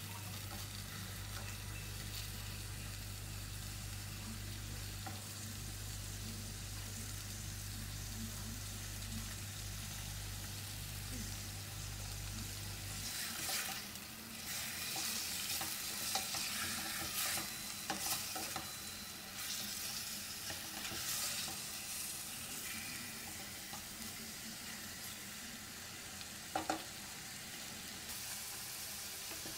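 Lamb chunks and diced carrots sizzling in oil in a stainless steel saucepan, stirred with a wooden spoon. From about halfway the sizzle and scraping get louder and more uneven, with a sharp knock near the end.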